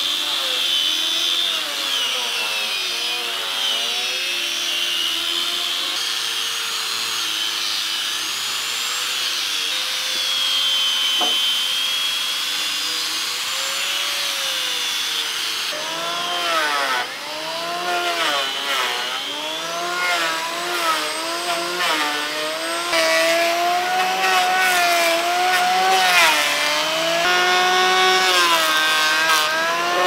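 Electric orbital sanders running on wooden beams, their motor whine rising and falling as they are pressed into the wood and moved along it. From about halfway in, an electric hand planer joins them, cutting shavings off a beam, and the sound gets rougher and denser.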